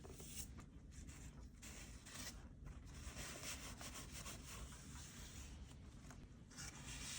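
Faint, irregular rubbing and handling sounds of hands working with craft materials, turning to a slightly louder, even hiss near the end.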